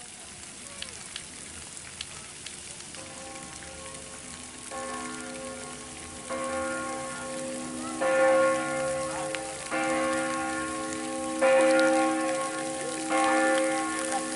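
Fountain water splashing in a steady hiss. About three seconds in, church bells start ringing, with a new strike every second and a half to two seconds, each ringing on into the next and the peal getting louder.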